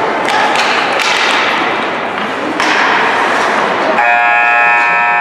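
Ice hockey arena noise: crowd voices with sharp clacks of sticks and puck. About two and a half seconds in the crowd grows louder, and from about four seconds an arena horn sounds, one steady chord that holds on.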